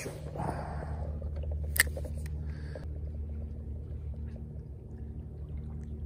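A steady low mechanical hum, with one sharp click about two seconds in.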